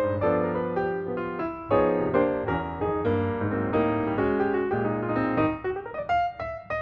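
Piano music: a quick, flowing run of notes that thins to a few sparser notes near the end.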